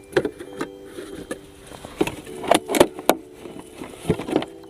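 Scattered knocks and scrapes as a plastic-bottle bird trap with a stick trigger is handled and set on the ground, the loudest a little before the middle. A steady background tone runs underneath.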